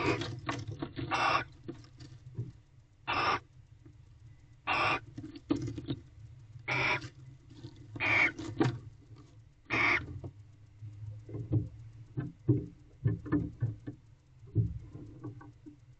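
Barn owl giving about eight short, harsh calls in the first ten seconds, then soft scratching and tapping.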